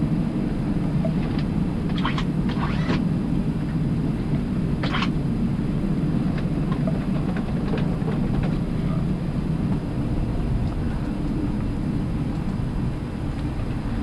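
Steady low rumble of an Airbus A380 flight deck on the ground before takeoff, with a few short clicks about two, three and five seconds in.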